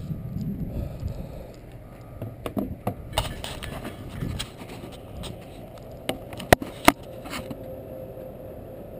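Handling noise from a hand-held camera being gripped and moved: scraping and rubbing on the microphone, with two sharp knocks close together about six and a half seconds in. Wind rumbles on the microphone at the start, and a faint steady hum comes in near the end.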